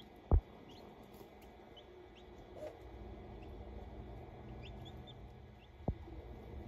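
Newly hatched chicks peeping faintly in short, high, scattered chirps. Two sharp knocks sound over them, one just after the start and one near the end.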